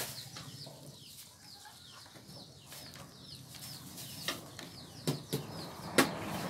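Birds chirping, a quick high call repeating about three times a second, with chickens clucking. A few sharp knocks come near the end, the loudest about six seconds in.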